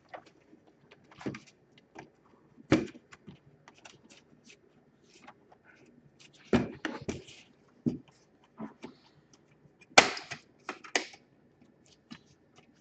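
Plastic laptop case parts being handled and pressed together: irregular sharp clicks and knocks, a few loud ones spread through with lighter tapping between, the loudest about ten seconds in.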